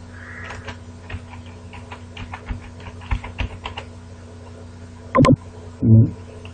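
Computer keyboard typing: a quick run of key clicks as a password is typed in. It is followed near the end by two louder short sounds.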